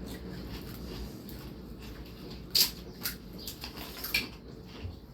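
Crisp pani puri shells cracking, a few sharp crackles, the loudest about two and a half seconds in.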